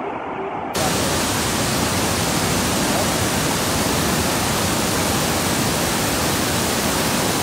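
Floodwater of the Piracicaba River rushing over rapids after heavy rain: a steady, loud roar of churning water, growing fuller a little under a second in.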